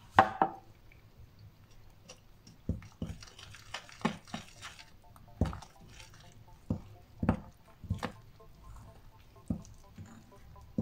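Metal fork stirring flour, milk, egg and butter into a dough in a ceramic bowl: irregular knocks and scrapes of the fork against the bowl with soft wet squishing, the loudest knock just after the start.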